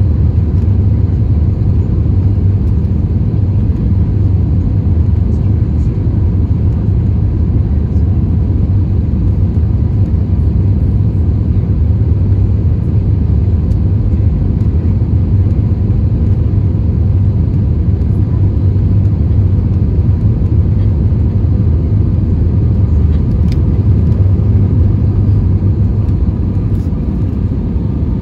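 Steady low rumble of airflow and engines heard inside the cabin of an Airbus A320 on final approach.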